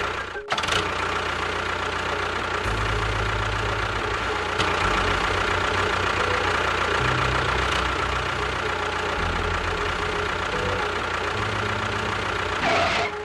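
Engine running steadily, with a low rumble that shifts up and down in level several times.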